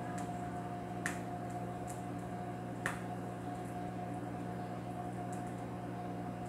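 Vinyl LP playing the silent groove between tracks: faint surface hiss and a steady hum, with a few sharp clicks, the clearest about a second in and just under three seconds in.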